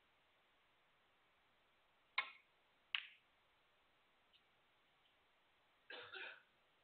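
Snooker shot: a sharp click of the cue tip striking the cue ball, then a second click about three-quarters of a second later as the cue ball strikes another ball, with two faint ticks of balls touching cushions. A short, muffled noisy sound follows near the end.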